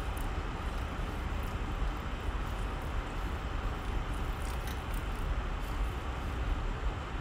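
Stockpot of broth boiling on the stove: a steady bubbling hiss with a low rumble and a few faint ticks.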